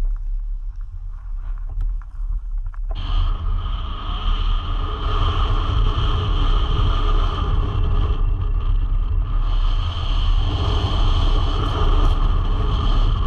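Steady vehicle rumble and rushing noise, with a heavy low rumble throughout that swells into a louder hiss about three seconds in.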